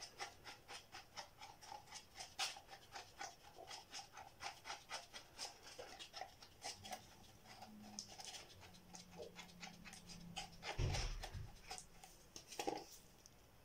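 Two-part 5-minute epoxy being stirred in a cup: quick rhythmic scraping at about three to four strokes a second. The stirring stops about ten seconds in, followed by a dull knock and a short click.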